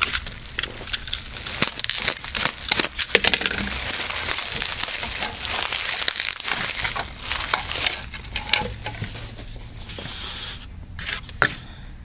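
Bubble wrap crinkling and crackling as it is pulled and peeled off by hand, busy and continuous at first, then dying down to a few scattered crackles near the end.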